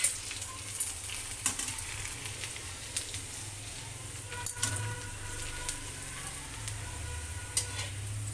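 A whole homemade rice papad frying in hot oil: steady sizzling, broken by a few sharp pops and crackles as it puffs up.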